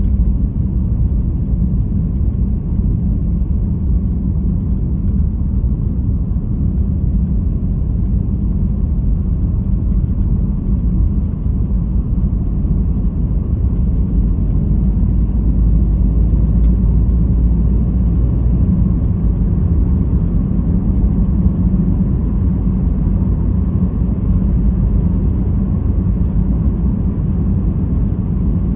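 Steady low rumble of a car being driven, with road and engine noise running evenly throughout.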